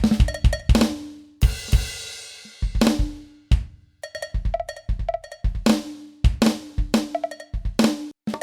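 Yamaha DTX700K electronic drum kit played in a quick, busy pattern on one of its unusual pitched kit sounds. The hits are short and tuned, with one long ringing crash about a second and a half in.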